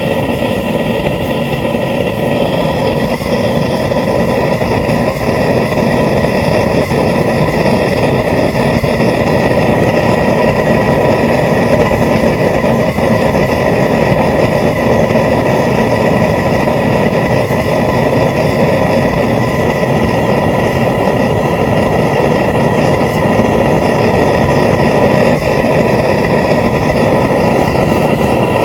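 Homemade propane forge burner running steadily at about 5 psi, a loud, even rushing of gas and air with a few faint steady whistling tones.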